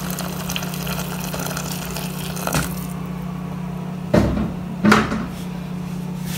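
Boiled water poured from a kettle into a large aluminium pot of tomato-and-onion base, the stream stopping about three seconds in. Two knocks a second apart follow, over a steady low hum.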